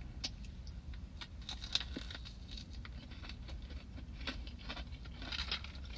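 Close-miked chewing of a fried chicken tender: a run of soft, irregular mouth clicks and wet crackles.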